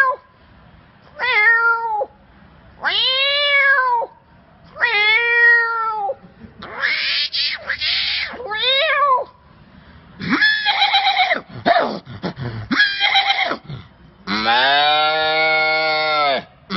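A man imitating cat meows with his voice: a string of about eight separate meows, each rising and falling in pitch, some rougher and more strained. Near the end comes one longer, drawn-out call.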